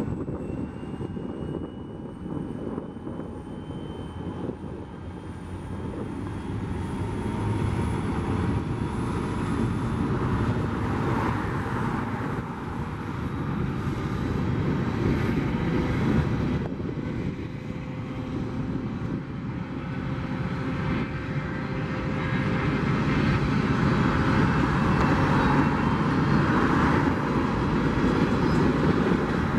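EMD GP40-2 diesel locomotive with a turbocharged 16-cylinder engine working as it pulls a freight train: a deep engine rumble under a thin high whine that slowly rises in pitch over the first half. Cars passing on the road mix in, their tyre noise swelling and fading.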